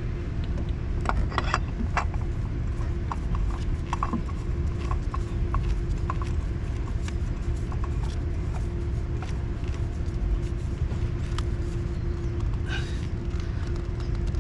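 Small scattered clicks and scrapes of an oil filter being handled and screwed on by hand, over a steady low rumble.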